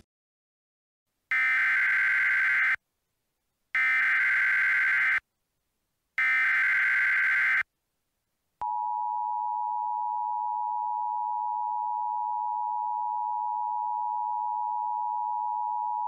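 Emergency Alert System tones: three bursts of the SAME digital header, each a harsh buzzy data warble about a second and a half long, coded as a Severe Weather Statement. About halfway through, the EAS attention signal starts, a steady two-tone beep of 853 and 960 Hz.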